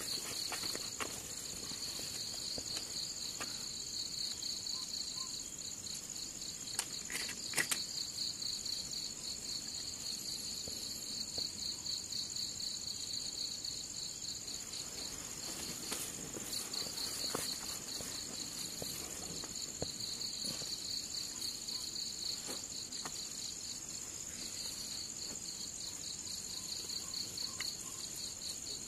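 Night crickets chirping: one a steady high trill, another a fast pulsing chirp lower down that falls silent for several seconds midway and then resumes. A couple of brief clicks about seven seconds in.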